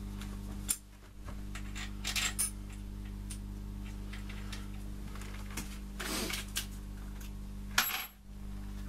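A few separate light metallic clinks and knocks as steel main bearing caps and hand tools are handled on an engine block and workbench, the sharpest near the end, over a steady low electrical hum.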